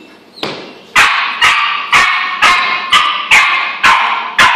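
A nine-week-old puppy barking repeatedly while held back and lunging forward: a softer first bark, then a steady run of sharp barks about two a second.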